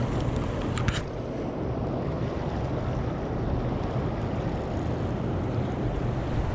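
Steady rushing noise of wind and fast river water, with a low steady hum underneath. A short rattle sounds about a second in.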